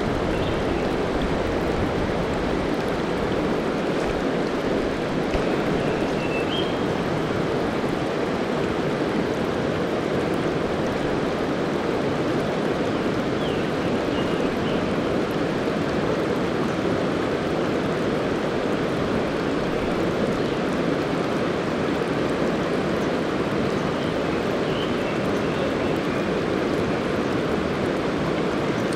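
Tama River mountain stream rushing steadily, with a few faint, short high chirps now and then.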